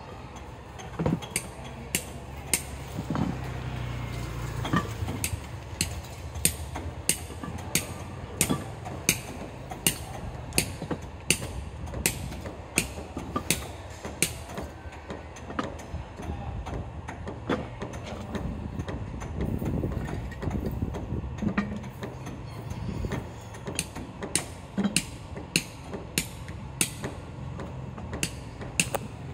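Steady hammering on a building site: sharp blows about two a second, with a few short pauses, over a low background rumble.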